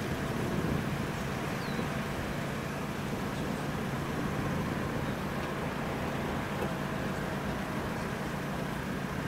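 Steady low hum of idling road vehicles and traffic, with no clear strikes or rhythm.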